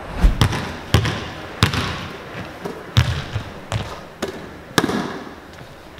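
A basketball bouncing on a hardwood gym floor during shooting practice: about half a dozen sharp thuds at uneven intervals, each echoing in the large hall.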